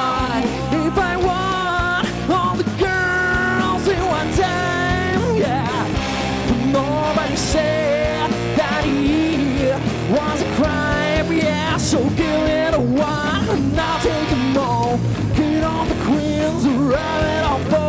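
Live heavy-funk rock band playing loudly, with electric guitars, bass and drums, and a voice over them.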